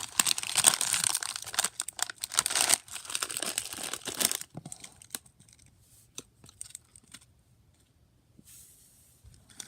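Plastic candy wrappers crinkling as they are handled, densely for about the first four and a half seconds, then a few scattered crackles and clicks.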